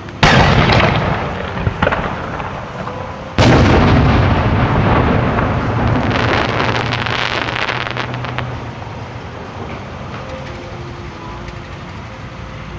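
Large aerial firework display shells: two heavy booms about three seconds apart, each rolling away in a long valley echo, then a few seconds of crackling.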